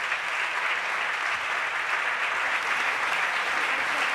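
Sustained applause from many people clapping, steady throughout.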